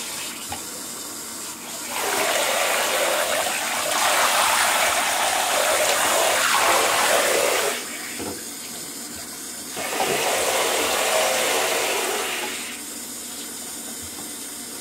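Water running from a handheld shower head into a bathtub: a steady hiss and splash that swells louder from about two seconds in for several seconds, drops back, and swells again briefly around ten seconds in.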